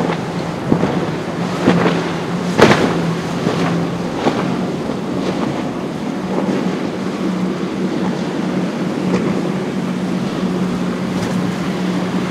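Wind and breaking surf with a boat's engine droning steadily underneath, broken by several sharp splashing crashes in the first few seconds, the loudest one near three seconds in.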